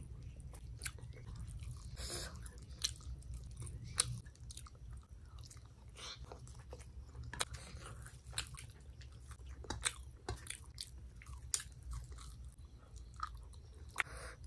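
Close-miked chewing and biting of someone eating, with many small irregular mouth clicks and the odd crunch, over a low steady hum.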